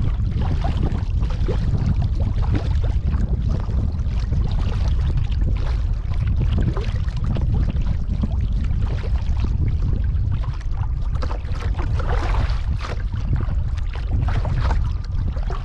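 Kayak paddling on a pond: irregular splashes and drips of the paddle blades in the water, busiest about three-quarters of the way through, over a steady low rumble.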